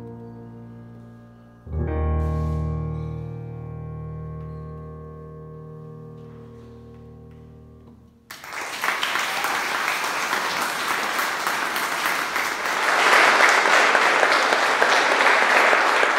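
Digital stage piano playing the closing chord of a piece: a full chord struck about two seconds in and left to ring out. About eight seconds in, the audience breaks into applause, which grows louder and is the loudest sound.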